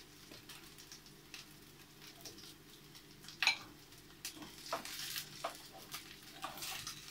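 Pork-and-cabbage patties sizzling faintly in oil in a frying pan, with scattered clicks and scrapes of a wooden spatula and fork against the pan and a plate, the sharpest about three and a half seconds in and several more in the second half.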